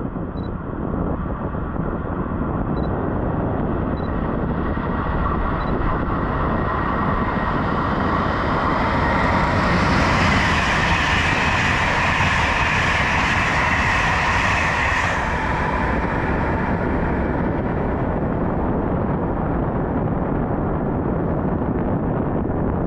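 InterCity passenger train hauled by a Siemens ES 64 P HellasSprinter electric locomotive passing at speed. The rolling noise of its wheels on the rails builds to a peak about ten to fifteen seconds in, then fades as it goes away.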